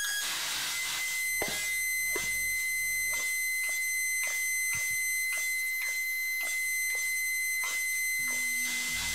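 Experimental noise music: a steady high tone with fainter higher whines over a hiss, broken by irregular crackling clicks. A low rumble underneath drops out about three seconds in.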